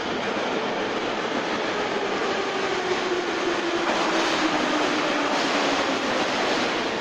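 Blue 81-717-type metro train pulling into the station: rail and running rumble growing louder as it nears, with a steady whine that slowly drops in pitch as it slows.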